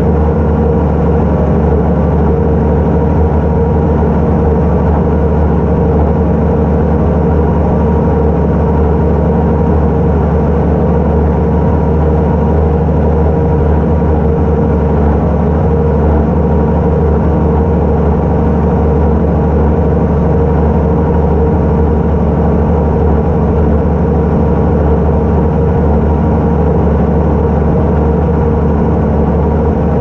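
Case Puma 240 tractor's six-cylinder diesel engine running steadily under load while pulling a plough, holding one even pitch throughout.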